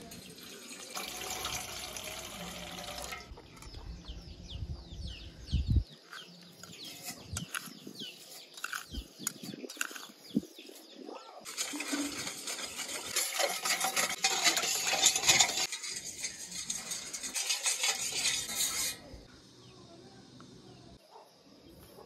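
Water pouring and splashing in two long spells, one brief and one of several seconds, with pots and utensils knocking and clinking between them.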